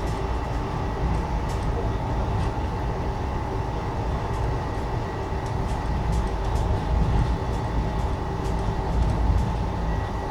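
Steady rumble of a running train heard from inside an air-conditioned Indian Railways passenger coach, with a faint steady whine over it and a few light high ticks.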